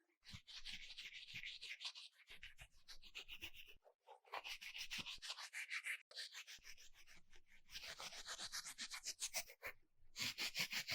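Fast, rhythmic scratching or rubbing strokes on a small hard object, several strokes a second, in runs broken by brief pauses.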